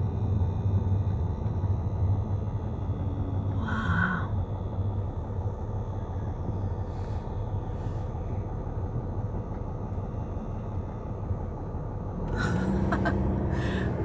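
Car driving slowly, heard from inside the cabin: a steady low rumble of engine and tyres on the road, growing a little louder near the end.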